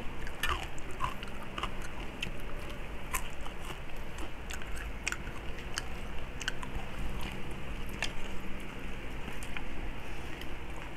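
Close-up eating sounds: chewing and biting into crispy pata (deep-fried pork knuckle), with scattered small clicks at irregular intervals.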